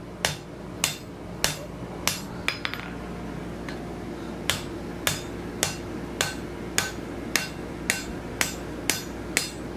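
Hand hammer striking a red-hot high-carbon steel bar set in the anvil's hardy hole, bending it over: steady blows a little under two a second.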